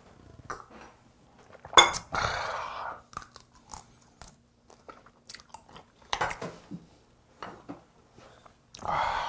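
A person chewing and crunching food close to the microphone, with wet mouth clicks and a few breathy exhalations.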